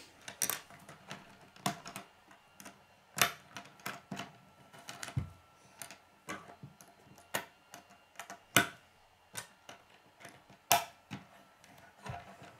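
K'nex plastic rods and connectors clicking and knocking together and tapping on a wooden tabletop as they are handled and snapped into place: irregular sharp clicks, a few much louder than the rest.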